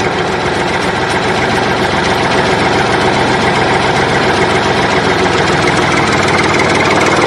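Tractor engine idling steadily, with a fast even firing beat.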